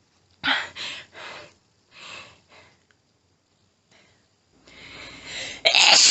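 A woman panting hard between sneezes: a few short, noisy breaths in the first second or so, then quieter ones, then a rising, hitching inhale as the next sneeze builds. A loud sneeze starts just before the end.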